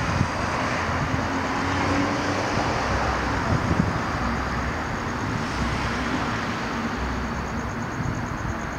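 Steady traffic noise from cars on nearby roads, with a faint high pulsing trill that grows stronger near the end.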